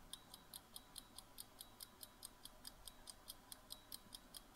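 Quiz countdown timer sound effect ticking faintly and evenly, about four quick ticks a second.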